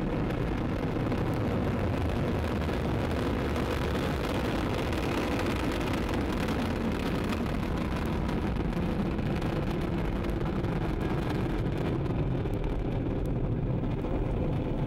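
Ariane 5 rocket climbing just after liftoff, its Vulcain main engine and two solid rocket boosters firing: a steady, deep rushing noise that holds an even level.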